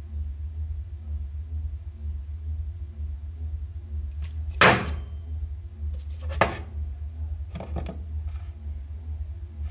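Handling noise from a dismantled oval loudspeaker being turned over on a wooden table: a sharp knock-and-scrape about halfway through, then two shorter scrapes. A steady low hum runs underneath.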